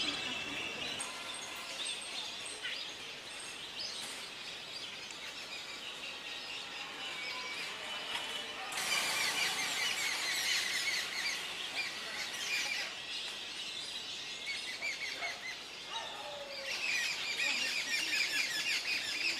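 A large flock of lesser whistling ducks calling from the lake, a dense chatter of many short high whistles that swells louder about halfway through and again near the end.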